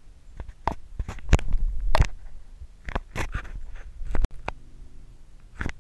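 Hand-tool handling sounds from a socket and ratchet being worked onto an engine's oil pressure sensor: a dozen or so sharp clicks, knocks and scrapes of metal against metal, cutting off suddenly a little after four seconds in.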